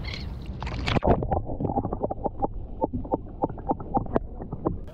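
Water sloshing as a camera is dipped below the surface, then muffled underwater sound: a low rumble with many irregular ticks and pops.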